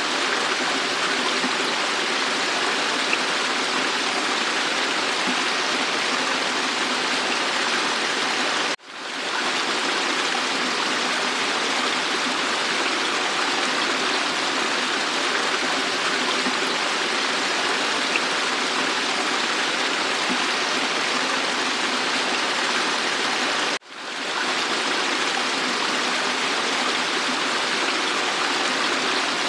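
Waterfall water rushing steadily. The sound cuts out abruptly twice and fades straight back in.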